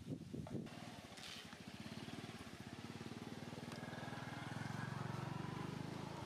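A vehicle engine running with an even, rapid pulse, growing louder to a peak about five seconds in and easing off near the end.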